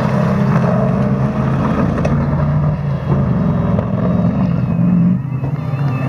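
Off-road autocross buggy's engine running loud and hard, dropping off suddenly about five seconds in.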